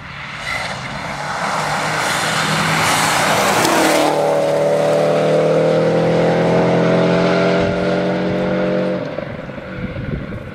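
A rally car at speed on a gravel stage. Engine and gravel noise build as it approaches and pass close about four seconds in, where the engine note drops. It then holds a steady note as the car drives away, fading after about nine seconds.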